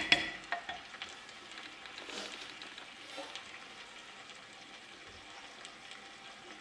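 Raw chicken pieces and onions frying in a pot, a faint steady sizzle. A wooden spoon clicks against the pot a few times right at the start.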